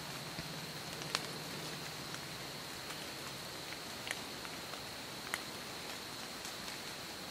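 Water dripping from wet trees in the woods: a few scattered sharp drips, about three clear ones, over a steady hiss with a thin high tone.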